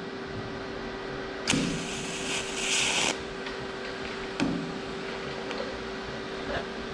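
TIG torch re-melting a tack weld on a steel tube, a tack that had floated up instead of sinking in. A sudden hiss starts about a second and a half in and cuts off after about a second and a half, over a steady hum from the welder. A couple of short clicks follow.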